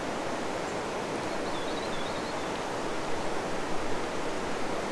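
Shallow river water running over stones, a steady rushing close to the microphone.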